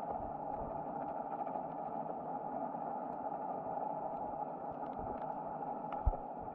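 Muffled underwater ambience: a steady rushing noise with scattered faint clicks, and a short thump near the end.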